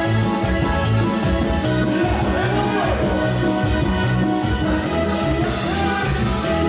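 Loud Latin dance music of the salsa kind, with a steady bass and drum beat and a melody line that bends up and down.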